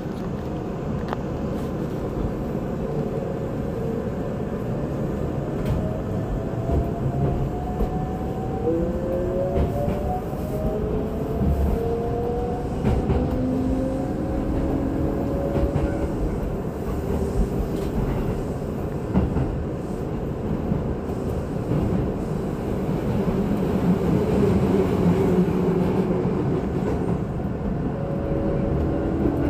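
Keisei 3600 series electric train (set 3668F) running, with a steady rumble of wheels on rail and some clacking over rail joints. The traction motors whine in several tones that climb in pitch for about the first half as the train gathers speed, then settle to a lower steady whine.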